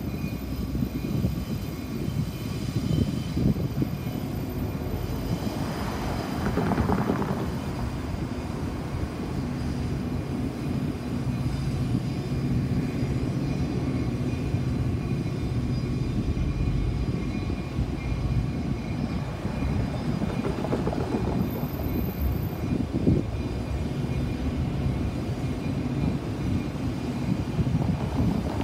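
Steady low mechanical drone with a constant hum, typical of engines idling or running out of sight. Louder swells come about six seconds in and again right at the end, when a car drives past close by.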